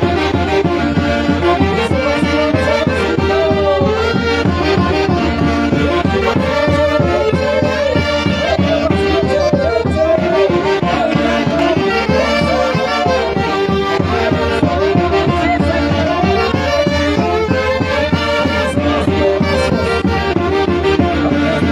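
A band playing lively traditional Peruvian Santiago music: a winding melody over a steady, unbroken beat.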